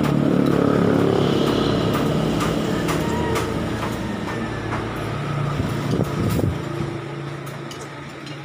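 A motor vehicle's engine running close by and slowly fading away, with spoons and forks clicking on plates.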